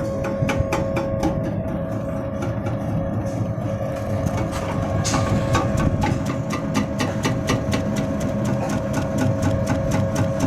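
Cassava chip slicing machine running: a steady motor hum with rapid, regular clicking, several clicks a second.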